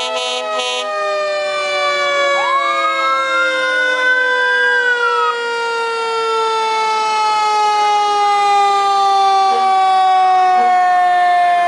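Fire engine sirens sounding as the trucks pass: one long siren tone slides slowly downward in pitch throughout, while a second siren rises steeply about two and a half seconds in and breaks off near five seconds. A few short horn blasts sound in the first second.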